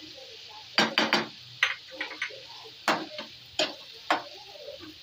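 Metal slotted spatula stirring chicken livers and spices in a frying pan: about eight sharp scrapes and knocks of metal against the pan, starting about a second in, over a steady sizzle of frying.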